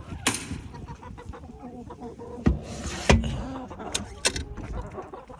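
Wooden chicken-coop door being opened: several knocks and clunks, the loudest about three seconds in just after a short scraping slide, with chickens clucking.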